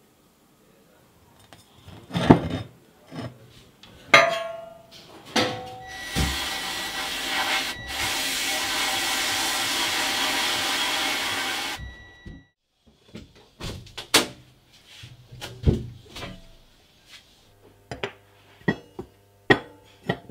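Metal parts clinking and knocking against each other. Then the steady hiss of a sandblast gun in a blast cabinet, stripping rust from steel parts, runs for about six seconds and cuts off suddenly. Then more knocks and clicks as the parts are handled.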